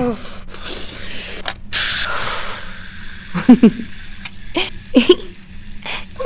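A hissing, spraying rush for about three seconds, the comic sound of a bout of diarrhoea on the toilet, followed by short low grunts of straining.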